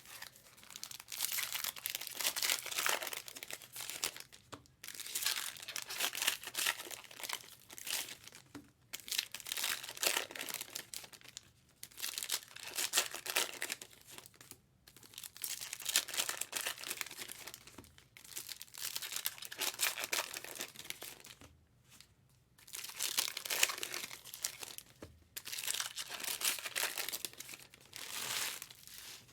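Foil trading-card pack wrappers being torn open and crinkled by hand, one after another. The sound comes in about eight crinkling stretches of a few seconds each, with short pauses between them.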